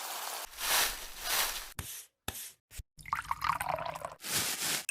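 A quick run of action sound effects: noisy whooshing swells, short bursts that cut off abruptly, and a falling sweep about three seconds in.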